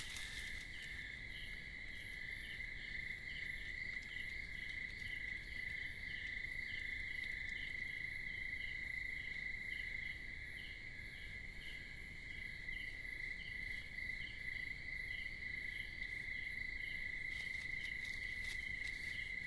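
Night chorus of insects in tropical forest undergrowth: one caller holds a steady high trill, while another repeats short chirps at an even pace over it.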